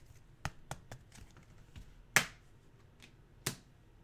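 Glossy trading cards being handled and flicked through one at a time: a few light clicks, then two louder brief swishes as cards slide off the stack.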